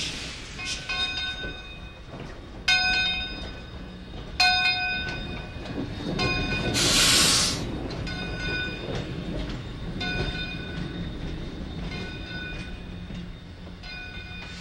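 Chinese-built 1989 steam locomotive moving slowly, with a low rumble and a ringing metallic clang repeated about every second or so. A loud burst of hissing steam comes about six seconds in and lasts a couple of seconds.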